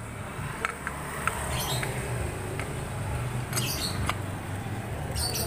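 Light metallic clicks and clinks of a motorcycle clutch pressure plate being handled and set onto the clutch basket and plates, a handful of scattered taps over a steady low hum.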